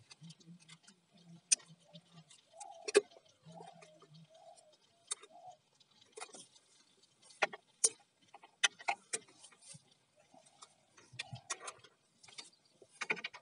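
Irregular sharp plastic clicks and handling noises of MC4 solar-panel connectors being unplugged and plugged into two-in-one-out branch connectors.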